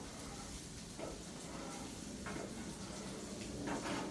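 Metal spatula scraping and pushing scrambled eggs across the steel cooking surface of a Blackstone flat-top griddle, a few short scrapes over a faint, steady frying hiss.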